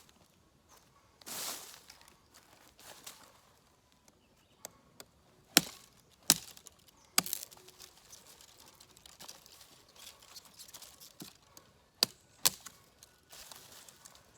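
Large kukri-style folding knife (Cold Steel Rajah II) chopping into wood: a handful of sharp strikes at irregular intervals, the loudest bunched in the middle and near the end, with softer rustling between them.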